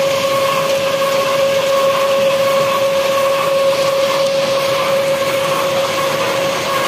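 Overhead belt conveyor running with a steady whine while gravel pours off its end into a truck trailer with a constant rushing noise.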